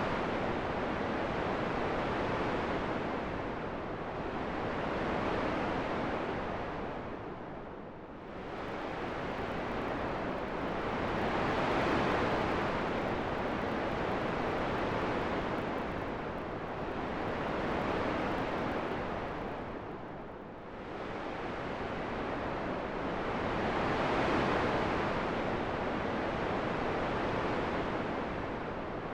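Wind: a steady rushing noise that swells and fades in slow gusts about every six seconds, dipping lower twice.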